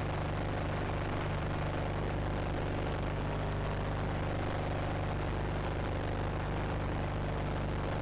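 Rotax 582 water-cooled two-stroke twin engine and propeller of a Chinook Plus 2 ultralight running steadily in flight, heard from inside the cockpit as an even drone with air rushing past.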